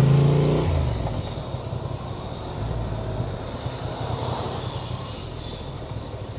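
Honda Transalp motorcycle engine running with a steady note that drops away under a second in as the revs fall. It then carries on lower and quieter under a steady rushing noise.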